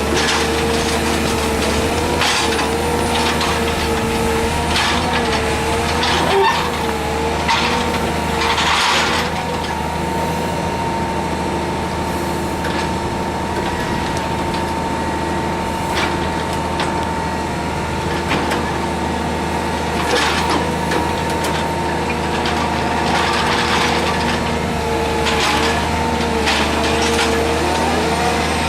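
Hydraulic excavator running under load: a steady diesel drone with a hydraulic whine that wavers up and down in pitch as the rotator attachment works. Occasional short knocks and hisses are scattered through it.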